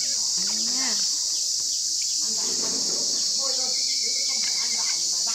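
A steady, high-pitched chorus of insects, with short voice sounds near the start and again past the middle, and a brief splash of water in a basin about two and a half seconds in.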